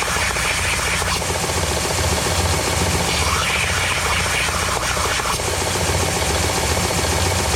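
Power sander running with a steady motor hum while steel bolt heads are pressed against the abrasive to sand off their coating; the rasping grows louder about three seconds in.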